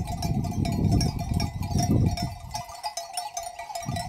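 Bells on a grazing flock of sheep clinking and clanking irregularly, over a low rumble that swells and fades.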